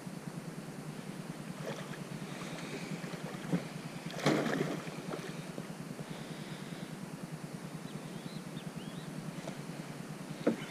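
Steady low rumble of wind and water noise aboard a small boat. Sharp knocks come about three and a half seconds in and again near the end, and a louder short rushing burst comes just after four seconds.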